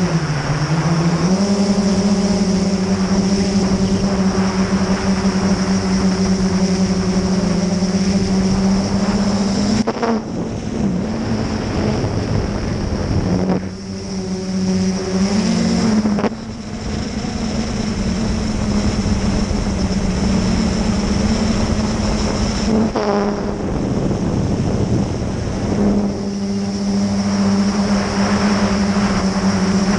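Quadcopter's electric motors and propellers heard close up from the onboard camera: a loud, steady buzzing hum that wavers in pitch with the throttle. It briefly drops away and comes back several times, as the throttle is eased off and opened again.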